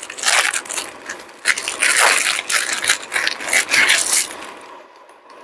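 Dry instant ramen noodles being handled and added to the pot: irregular crinkling and crackling that dies away about four seconds in.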